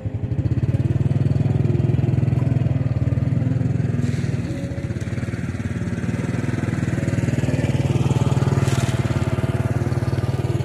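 An engine running steadily at a constant speed, a low pulsing drone that swells slightly and eases off again.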